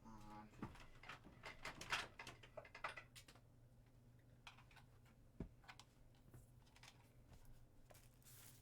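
Faint clicking and rattling of small plastic parts being handled, busiest in the first three seconds, then only a few isolated clicks.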